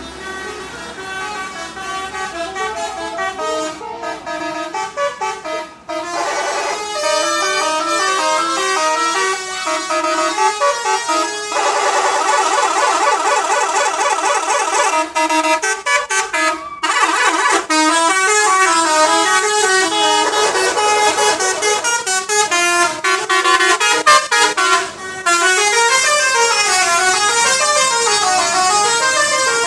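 Telolet musical horns on Kanaya buses, playing tunes. The horns sound in turn and over one another, in quick stepped runs of notes rising and falling. There is a fast warbling stretch in the middle and short breaks between bursts.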